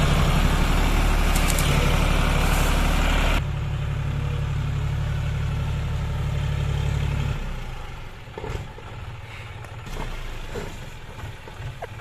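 John Deere 5039D tractor's three-cylinder diesel engine running under load, pulling a trolley full of soil. It is loud and close at first, cuts abruptly to a quieter, more distant sound about three and a half seconds in, and fades away after about seven seconds.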